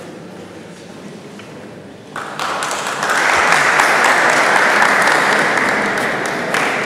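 Spectators applauding, starting about two seconds in and growing louder a second later into steady clapping.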